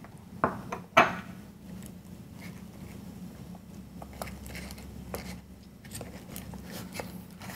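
A metal spoon clicking and scraping against a ceramic ramekin and a pipe mould as cherries are scooped and pressed in. One sharp clink about a second in is the loudest, followed by faint scattered taps over a low steady hum.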